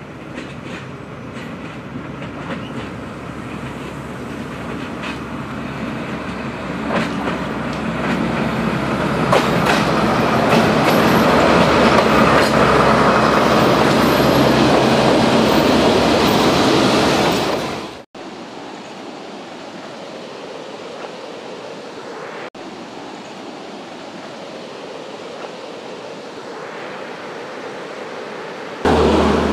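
Narrow-gauge diesel-hauled passenger train approaching and passing close by, growing louder over about twelve seconds, with the wheels clicking over rail joints. It cuts off sharply about eighteen seconds in, giving way to a quieter steady rushing noise.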